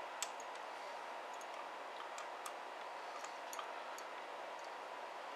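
Several faint, irregular clicks and taps of a small steel deep well socket and a brass shotgun shell being handled and fitted together.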